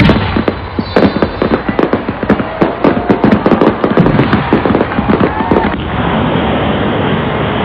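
Aerial fireworks going off: a rapid, dense crackle of sharp bangs with a few short whistles. About six seconds in, the separate cracks give way to a steady rushing roar.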